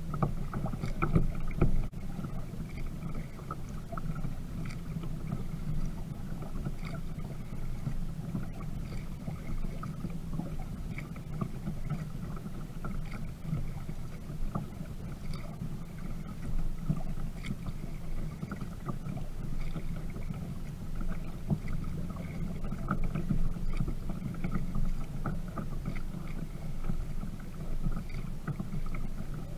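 Water lapping and splashing against the plastic hull of a Viking Profish Reload sit-on-top kayak as it moves through calm water, with a steady low rumble and many small scattered ticks.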